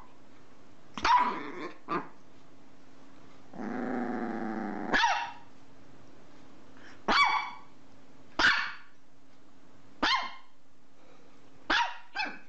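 A dog barking in single, separate barks spaced one to two seconds apart, with a growl of about a second and a half near the middle that runs straight into a bark. A faint steady hum underneath.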